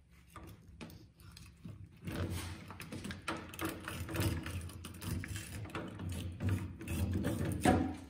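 Fillet knife sawing along the backbone of a kokanee salmon, cutting through the rib bones. From about two seconds in it gives a quick, rapid run of short scraping strokes that grows loudest near the end, as the fillet is worked free.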